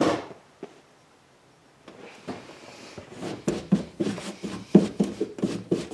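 A hand brushing aluminum drill shavings off boat carpet: a quick run of short brushing strokes, about three or four a second, in the second half, after a single sharp sound at the very start.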